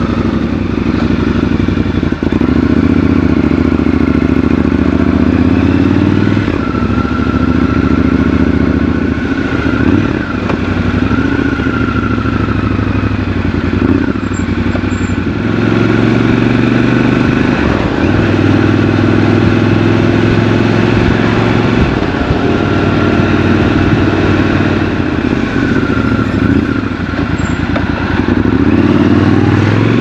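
Triumph Scrambler 1200 XC's 1200 cc parallel-twin engine, first ticking over, then pulling away and riding through city traffic. The engine note rises with each acceleration and drops back at each gear change or roll-off.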